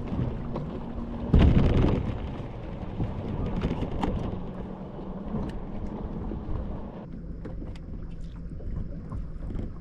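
Wind buffeting the microphone over water slapping on a bass boat, with a low steady hum underneath. A louder rush comes about a second and a half in.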